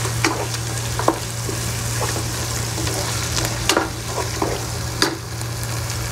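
Onion-tomato masala with coriander and mint leaves sizzling in oil in a dark pan while a wooden spatula stirs it. The spatula scrapes and knocks against the pan every second or so, over a steady sizzle.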